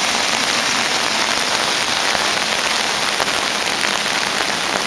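Rain falling in a steady hiss on wet pavement.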